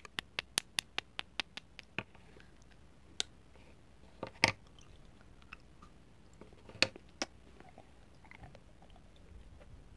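Two solid chocolate spoons tapped together in quick, even clicks, about five a second, stopping about two seconds in. Solid chocolate then snaps sharply twice, loudest about halfway and again a couple of seconds later, with soft chewing between.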